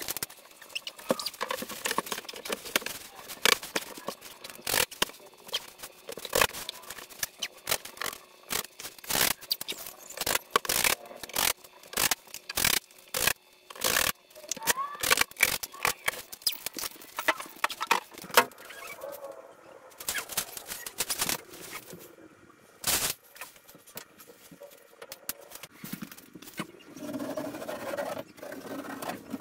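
Irregular knocks, clacks and scrapes of drywall sheets being handled against the wall and fastened to the framing.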